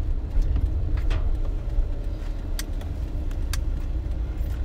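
Car interior while driving: a steady low rumble of engine and road, with a few sharp clicks.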